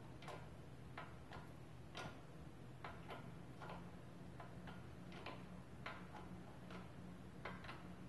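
A shop press pushing the outer bearing race out of a Mercedes W220 wheel hub, heard as faint, irregular clicks, about one or two a second.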